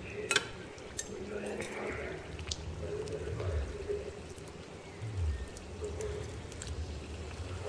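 Hot oil in a wok sizzling and bubbling as pieces of battered chicken are lowered in to deep-fry, with a few sharp clicks of a metal spoon and utensil.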